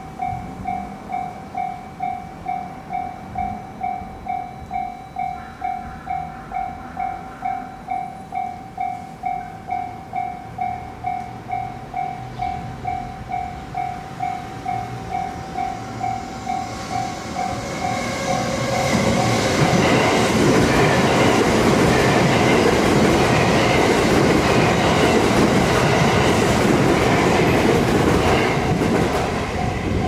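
Japanese railway crossing bell ringing its steady repeating 'kan-kan' tone. Just past halfway a train runs through the crossing, a loud rumble with wheel clatter on the rails that drowns out the bell for about ten seconds, and the bell is heard again as the train clears.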